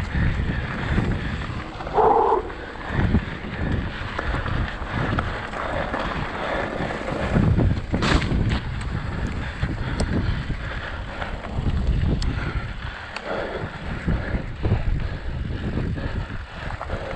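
Wind buffeting the microphone over the rattle and rumble of a mountain bike rolling fast down a rough dirt trail, with scattered knocks from the bike over bumps.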